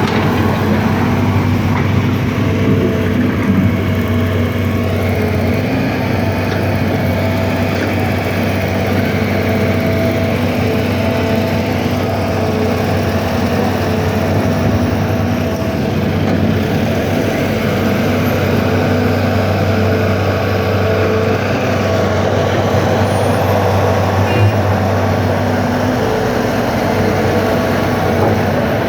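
A large engine running steadily at an even pitch.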